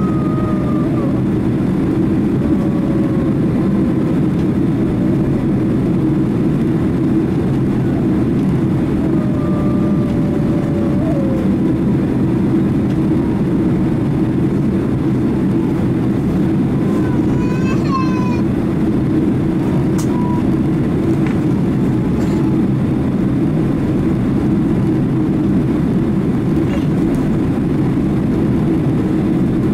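Steady, loud low rumble of a Boeing 767-300 airliner's jet engines and airflow, holding an even level throughout.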